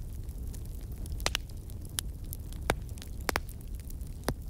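Wood crackling and popping in a Fire Maple Maverick wood stove: sharp, irregular pops, some close together, over a low steady rumble.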